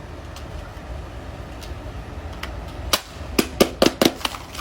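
A fidget toy being pressed: a quick run of sharp pops, about seven in a second and a half, starting about three seconds in over a low steady hum.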